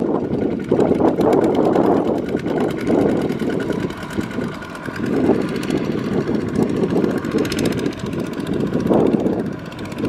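Single-cylinder diesel engines of Kubota two-wheel walking tractors running under load as they pull trailers of rice sacks through deep mud. The engine note has a fast, even beat and swells and eases as they work.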